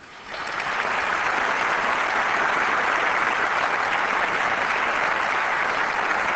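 Audience applauding, the clapping swelling in over the first half second and then holding steady.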